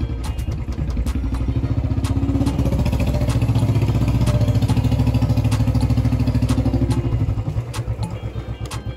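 Motorcycle engine running as the bike is ridden. Its note builds over the first few seconds and eases off near the end as the bike slows.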